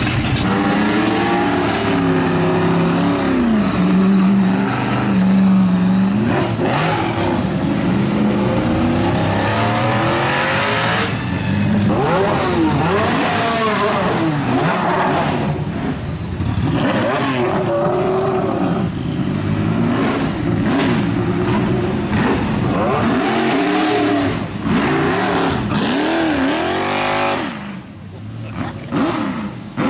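Racing car engines revving hard and accelerating, their pitch climbing and dropping again and again through gear changes. There is a brief lull near the end.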